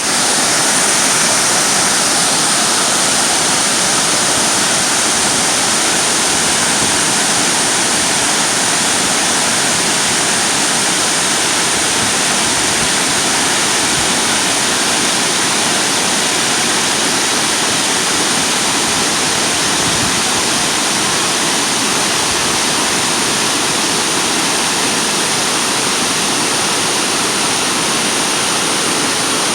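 Yudaki Falls, a waterfall cascading down a rock face, rushing steadily and loudly without a break.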